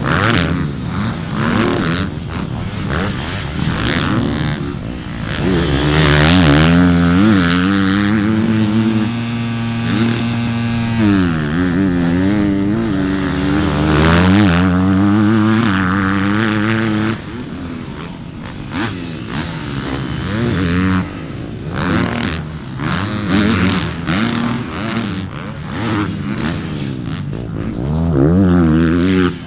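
Dirt bike engines on a motocross track revving up and down, the pitch climbing and dropping again and again through corners and jumps. The engine holds a steadier high note for a few seconds near the middle.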